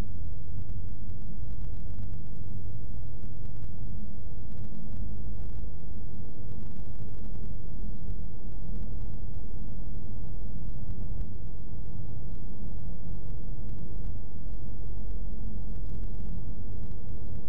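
Steady low rumble of a car driving along a road: engine and tyre noise as heard inside the cabin by a dashcam.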